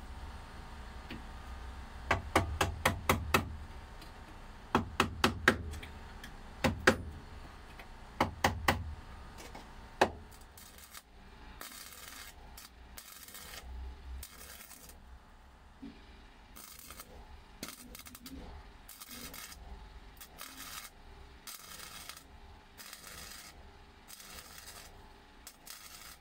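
Hammer blows on a screwdriver tapping down a steel wheel arch panel: sharp ringing metal strikes in several quick clusters over the first ten seconds, the loudest sounds here. After that a MIG welder crackles in a long run of short bursts with gaps between them, stitching the new panel onto the van's body.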